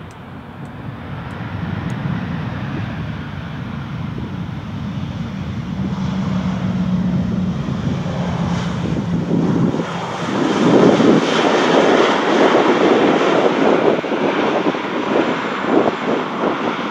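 A loud engine with a rushing noise, building up over the first couple of seconds. A steady hum runs through the middle, and it turns louder and gusty about two-thirds of the way in.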